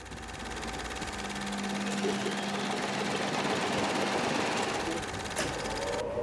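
Front-loading washing machine running, its motor turning the drum with a steady mechanical hum that fades in at the start.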